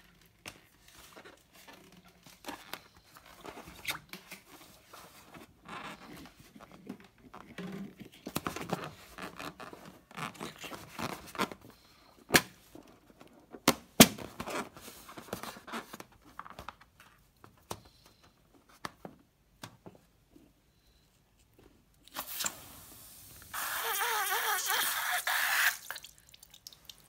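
Slime-filled rubber balloon being handled and squeezed, with soft squishing and rubbery crackling and two sharp clicks midway. Near the end, slime and air squirt out through the balloon's nozzle in a loud hissing, sputtering stream lasting about four seconds.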